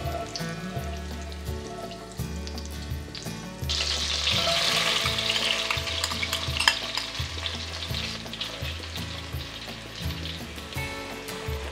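Butter sizzling and bubbling in a hot cast iron Dutch oven while it is stirred. About four seconds in, diced onion goes into the hot butter and the sizzle turns much louder and hissier, easing off near the end; a sharp clink comes about seven seconds in.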